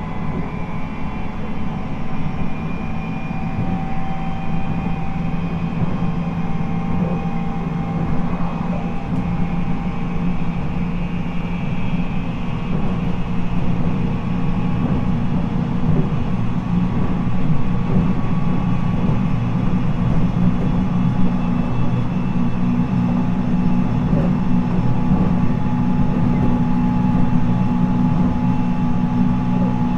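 A JR East 719 series electric train heard from on board at running speed: a steady rumble of wheels on rail, with a jet-like whine made of several steady tones above it. The whine is the abnormal noise this particular unit is known for. The sound grows a little louder about halfway through.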